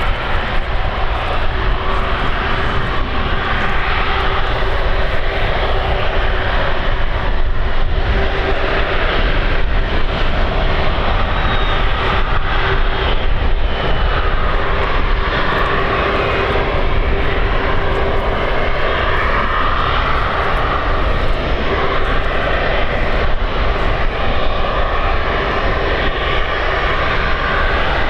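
Jet engines of an Airbus Beluga XL (A330-700L) running with a steady, loud jet noise and a constant whine.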